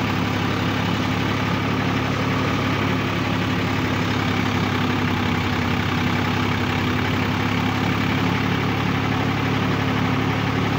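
Swaraj 744 XT tractor's diesel engine running steadily at a constant speed, in neutral.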